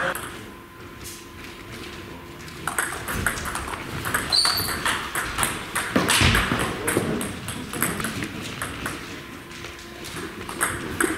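Table tennis balls clicking on tables and bats, scattered light ticks throughout, with a brief high squeak about four seconds in.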